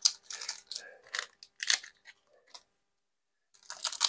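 Foil wrapper of a basketball card pack crinkling and tearing open in quick, irregular crackles. It stops for about a second, then the crinkling starts again near the end.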